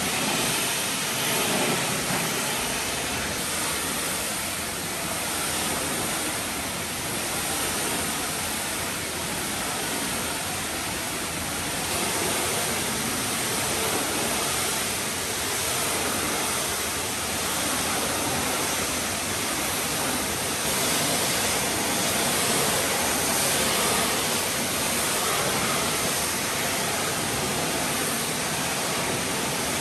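Pressure washer spraying water onto a fibreglass boat hull, a steady loud hiss of spray.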